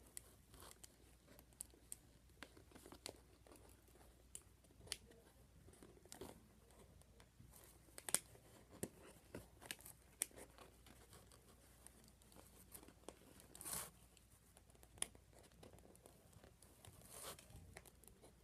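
Faint scattered clicks, crinkles and tearing of plastic and cardboard packaging being handled to free a toy from its box, with louder rustles about fourteen and seventeen seconds in.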